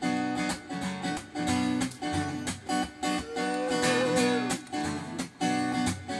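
Acoustic guitar strummed in a steady rhythm, the instrumental intro of a song before the vocals come in. Over the middle a single wavering held note rises in and falls away.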